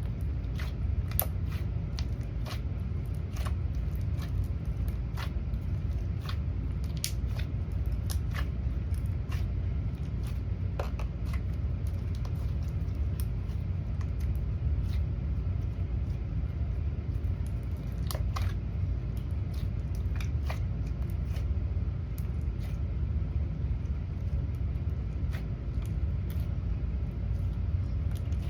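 Slime being squished and played with by hand, giving irregular small pops and clicks over a steady low rumble.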